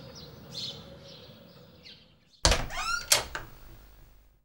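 Door latch and handle clacking loudly about halfway in, with a short squeak, then a second sharp click. Faint bird chirps are heard before it.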